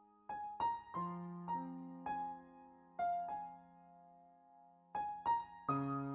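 Background piano music: slow single notes and chords struck and left to ring, in a gentle, tender style.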